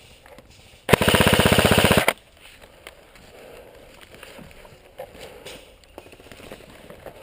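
Airsoft gun firing one rapid full-auto burst of about a second, a fast even rattle of shots.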